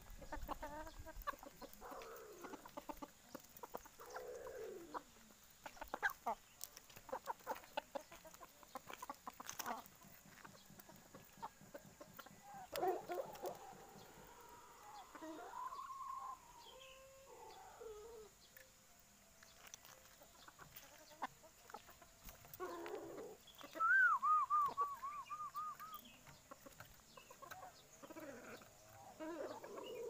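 Caged poksay mandarin (a laughingthrush) giving low clucking, chattering calls. About two-thirds of the way through it gives a quick run of bouncing notes. Light clicks and taps come from it hopping about the wire cage and pecking.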